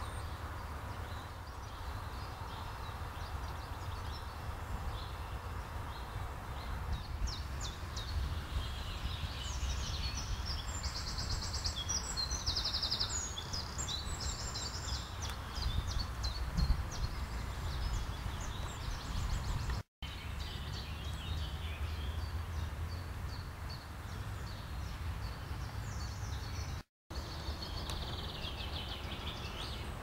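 Small songbirds singing in woodland, with varied high phrases and a fast trill, over a steady low rumble. The sound cuts out briefly twice.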